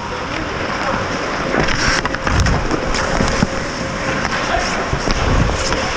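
Ice hockey skates scraping and carving the ice during play around the goal, with a few sharp knocks among the steady scraping.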